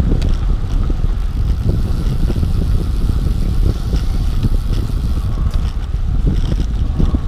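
Wind buffeting the microphone on a road bike riding at about 17 to 20 mph, a steady, loud low rumble.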